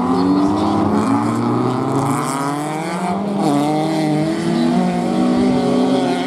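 Several BMW E36 rallycross cars racing, their engines revving hard. The engine notes overlap, climbing and dropping back with each gear change.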